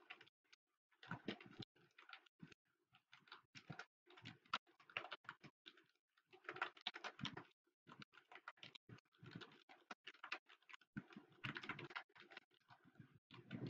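Computer keyboard typing: quick, faint runs of keystrokes at about 90 words a minute, broken by short pauses between words.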